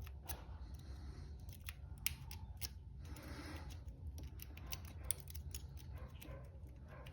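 Small metal clicks and scrapes of a thin shackle shim being worked into the shackle gap of a brass padlock, with a short scratchy stretch about three seconds in.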